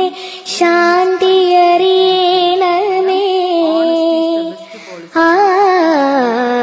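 Malayalam school prayer song sung by a high voice, holding long, nearly steady notes, with two short breaks: about half a second in and about five seconds in.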